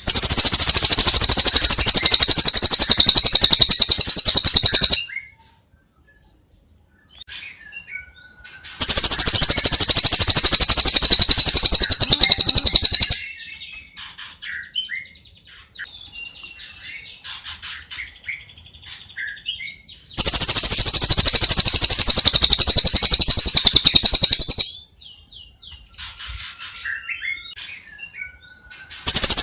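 Recorded songbird song from a bird-training master track. Three loud, very fast, high-pitched trills of about four seconds each are separated by softer, varied chirps and short whistles, and a fourth trill begins right at the end.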